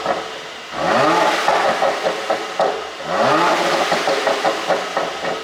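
Mercedes-AMG E43's twin-turbo 3.0-litre V6 exhaust revved twice, each rev followed by a rapid string of pops and crackles on the overrun from a pop-and-crackle ECU tune.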